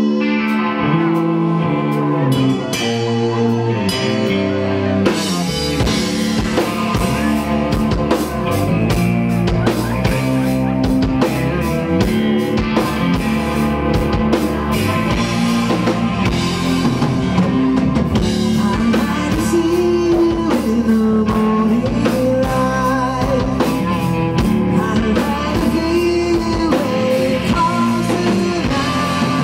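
Hard rock band playing live: electric guitar, electric bass and drum kit. The opening is led by guitar, and the drums and full band come in about five seconds in, with a steady beat after that.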